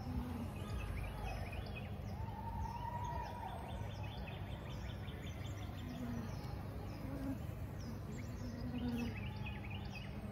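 Honeybees buzzing over the open top bars of a hive, a steady hum with the louder drone of single bees flying close now and then. The colony is a queenless one being shown a caged queen, and it sounds unagitated, in keeping with bees that show little aggression toward her.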